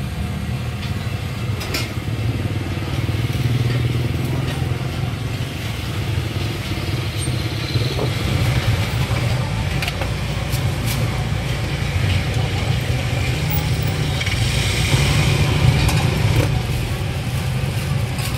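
A steady low mechanical rumble, like an engine running, under the stall, with a few scattered clinks of steel bowls and utensils being handled.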